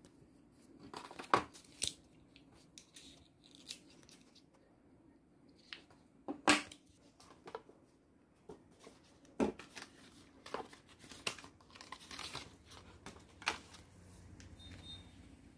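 Hands unpacking a phone and its accessories: scattered sharp clicks and taps with short bursts of plastic packaging rustling and tearing, the loudest about a second in and about six seconds in.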